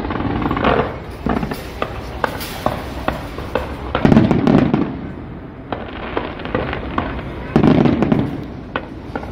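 Fireworks display going off: a string of sharp cracks and pops, with heavier booming bursts about four seconds in and again near the end.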